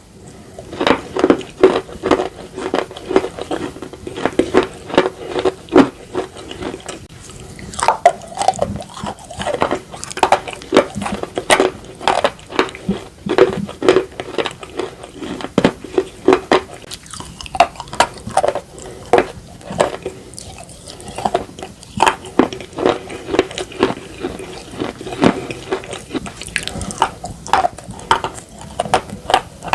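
Close-miked biting and chewing of slate pencils and slate, crisp crunches coming several a second in an irregular run.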